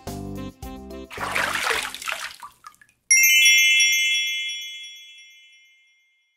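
Background music with a steady beat that stops about a second in, followed by a rushing swish and then a bright, sparkling chime sound effect that sounds suddenly about three seconds in and rings on, fading away over about three seconds.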